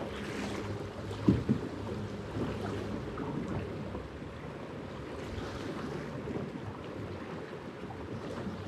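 Steady rush of river water with wind on the microphone, and a sharp knock about a second in.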